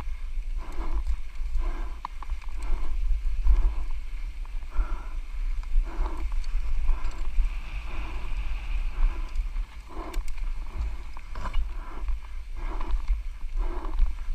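Mountain biker panting hard from exertion, a deep breath roughly every second, over a steady low wind rumble on the microphone.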